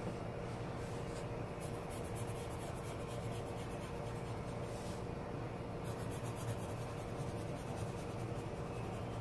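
Pencil scratching on paper in short, irregular shading strokes as a portrait is sketched, over a steady low hum.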